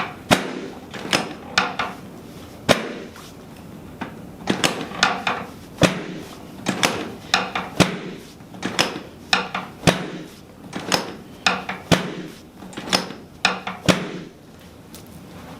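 A long run of sharp knocks and clacks from chiropractic adjusting work on a treatment table, about two a second, some coming in quick pairs or threes, stopping about fourteen seconds in.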